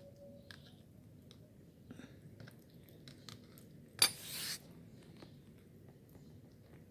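A kitten eating wet food, with faint smacking and small clicks of chewing. About four seconds in comes one sudden loud scraping clatter lasting about half a second.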